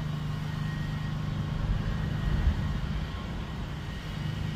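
Steady low mechanical hum, even and unbroken, with a light hiss above it.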